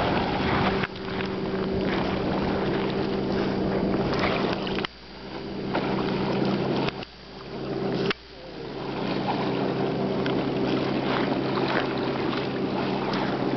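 Boat motor running at a steady pitch under a haze of water and wind noise, with a few sharp knocks.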